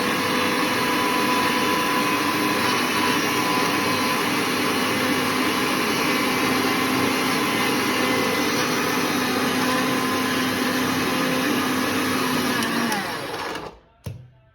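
Electric mixer grinder running steadily while grinding peeled ginger with a little added water into a paste. Near the end it is switched off and the motor winds down, followed by a single short knock.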